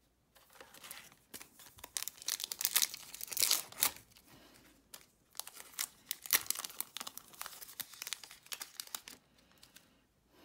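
The crimped wrapper of a Garbage Pail Kids trading-card pack being torn open and crumpled. It crackles and crinkles in two stretches, from about half a second to four seconds in and again from about five to nine seconds.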